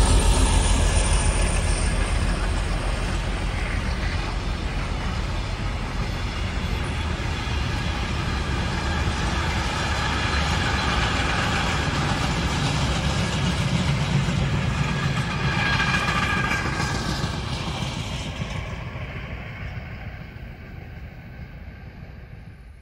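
DB Class 232/233 'Ludmilla' diesel locomotive passing with a freight train: a deep engine rumble at the start gives way to the steady rolling and clatter of freight wagons on the rails, which fade away over the last few seconds.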